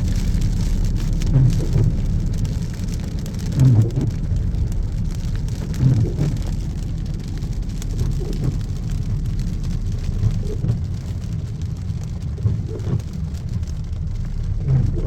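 Road noise inside a moving car on wet, storm-soaked streets: a steady low rumble with a crackling, rain-like hiss over it.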